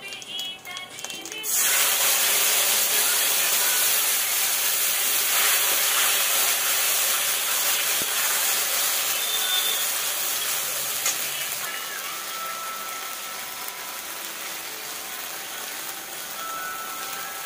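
Wet spice paste hitting hot oil in a steel wok and frying with a loud, steady sizzle that starts suddenly about a second and a half in. The sizzle eases a little about two-thirds of the way through as the paste is stirred.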